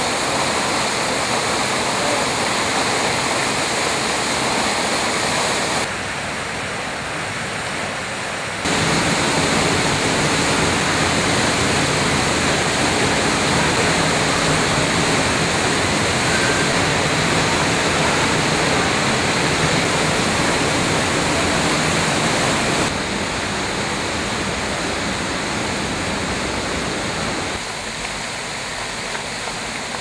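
Kozjak waterfall and its cascades: a steady rush of falling water, loud, whose level steps up or down suddenly a few times.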